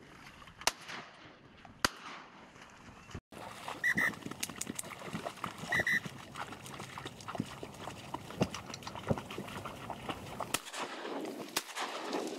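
Ducks quacking and chattering over a marsh, with two short high whistled notes about two seconds apart and scattered sharp cracks. The sound cuts out for an instant about three seconds in.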